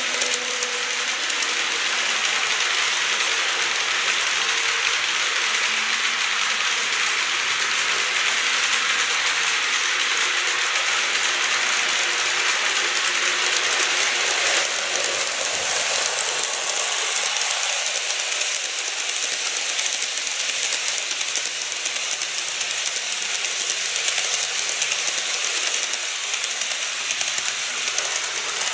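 Model trains running on sectional track, a steady rattling running noise: first a 115-series EMU model moving off, then an EH200 electric locomotive model hauling Taki 1000 tank wagons coming past.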